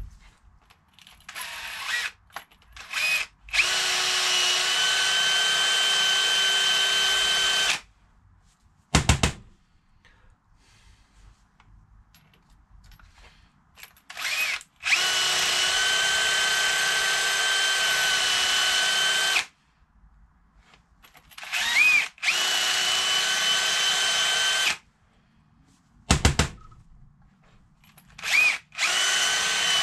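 Cordless drill running in bursts, a steady whine each time, spinning a small bit inside a diesel injector part to clear out carbon. There are four runs of about three to five seconds with short blips between them, each spinning up with a brief rise in pitch. Two low knocks fall between the runs.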